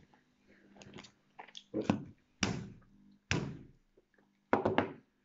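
A run of dull thumps and knocks, five or six sudden hits over a few seconds, each dying away quickly.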